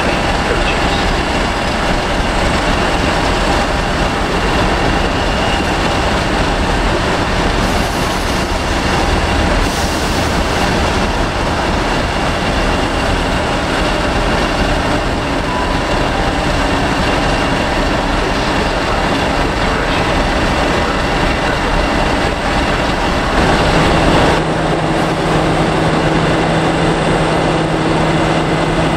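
Class 50 locomotive 50008's English Electric 16CSVT diesel engine running close by: a loud, steady diesel drone with a thin high whine over it. About 24 s in, the note changes and a deeper steady hum comes in.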